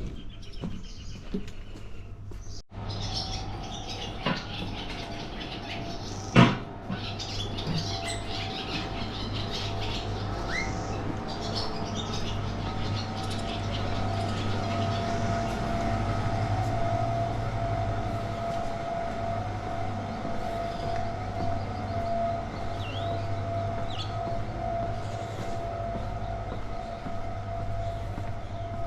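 A steady mechanical hum with a held whine, with birds chirping over it and one sharp click about six seconds in.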